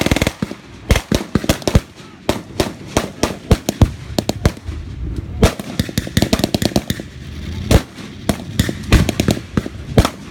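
Blank small-arms gunfire in a mock battle: many sharp shots at irregular intervals, several a second, some coming in quick strings.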